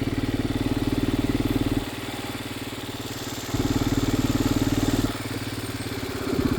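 Vehicle engine running at low speed, its rhythmic firing note growing louder and easing off in turns, with three louder stretches of under two seconds each, as the throttle is pressed and let off.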